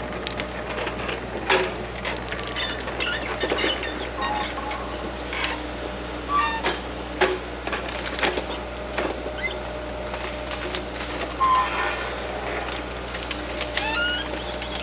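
Heavy equipment engine running steadily, with irregular sharp cracks and snaps like brush and wood breaking, and a few short high squeaks.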